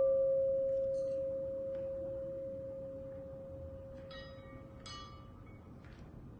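Live music: a single long ringing tone from a struck metal instrument, slowly fading away. Two short, high, bright ringing strikes come about four and five seconds in.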